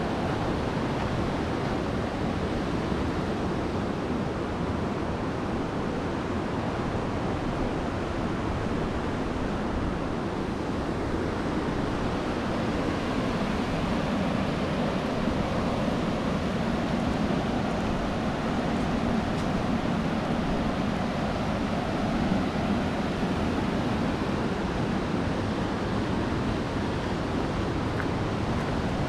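River rapids rushing steadily, a constant white-water noise.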